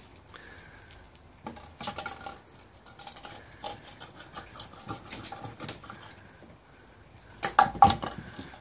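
Young puppies' paws scrabbling and pattering on paving slabs as they chase and play-fight, with many quick scuffs and knocks. A louder flurry of clattering knocks comes near the end.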